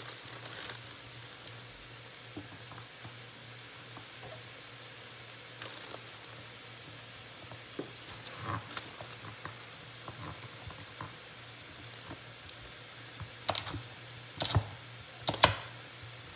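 Chicken breast sautéing in frying pans, a steady sizzle. Near the end come a few sharp knife chops through carrots onto a cutting board.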